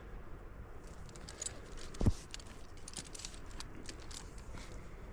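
Metal climbing gear, carabiners and quickdraws on a harness, clinking and jingling in many small light clicks, with one dull bump about two seconds in.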